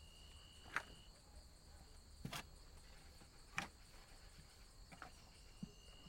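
Night insects such as crickets trilling steadily, with a higher note held for a second or two, twice. About five short, sharp ticks come irregularly over the trill.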